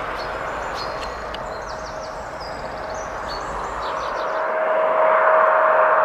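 Jet airliner engines on approach to land: a steady rushing noise with a whine, growing louder from about four seconds in as an Airbus A320 comes closer. Birds chirp over it in the first half.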